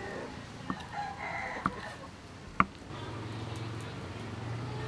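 Kitchen cleaver cutting through tofu and knocking on a wooden chopping board, three sharp knocks about a second apart, the last the loudest. A rooster crows and chickens call in the background, and a low steady hum comes in about three seconds in.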